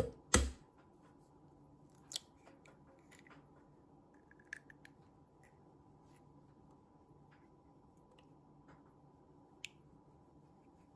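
An egg knocked once sharply against the rim of a stainless-steel mixing bowl to crack its shell, followed by a few faint, scattered clicks of shell as the egg is pulled apart and the yolk is separated.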